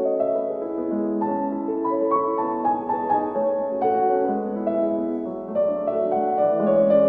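Solo piano music playing a slow, sustained melody over held chords, the notes changing about every half second to a second.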